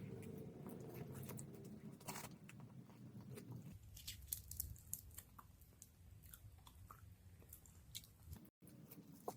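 Close-miked chewing of rice wrapped in roasted seaweed (gim), with many small crisp crackles and soft wet mouth sounds.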